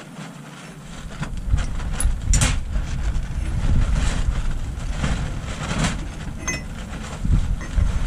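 A few sharp metal clicks and clinks from hand work at the gland of a backhoe boom hydraulic cylinder, one ringing briefly, over a loud, uneven low rumble that comes up about a second in.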